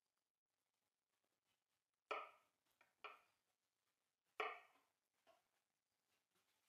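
Kitchen knife slicing a peeled banana on a wooden chopping board: three short knocks of the blade meeting the board, the first about two seconds in, then roughly a second apart, with near silence between.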